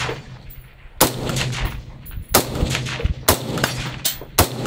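Suppressed IWI X95 Tavor bullpup rifle in 5.56 with an OSS HX-QD 556 Ti suppressor, firing supersonic rounds. Four single shots come roughly a second apart, each followed by a trailing echo.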